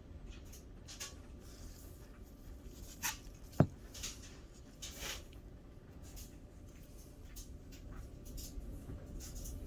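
Soft intermittent rustling and scraping of a 2x2 coin flip being handled as a coin is put into it, with one sharp click about three and a half seconds in, the loudest sound.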